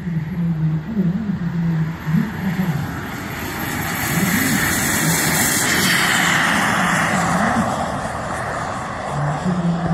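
Model F-104 Starfighter jet's miniature turbine at high power on the take-off run and climb-out: a rushing jet noise with a thin high whine, swelling to its loudest around the middle as the model passes.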